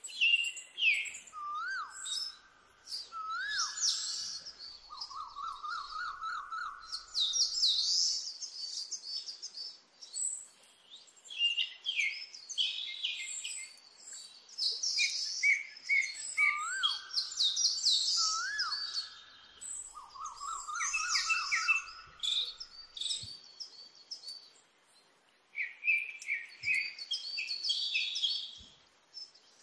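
Several birds chirping and singing, with a run of clear whistles and a trill lower than the rest that comes round again about fifteen seconds later, as in a repeating recording.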